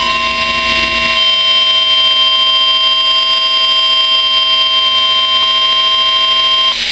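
NOAA Weather Radio 1050 Hz warning alert tone sounding from a weather-alert radio: one steady, loud electronic tone that cuts off suddenly near the end. It signals that a severe thunderstorm warning broadcast is about to follow.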